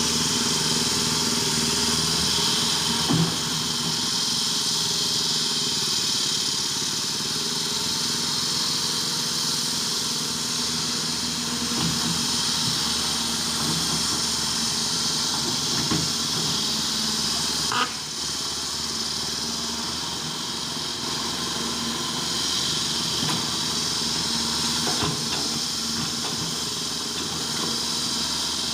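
Caterpillar 330 GC excavator's diesel engine running steadily with a high hiss over it, and two short knocks: one about three seconds in and one near eighteen seconds.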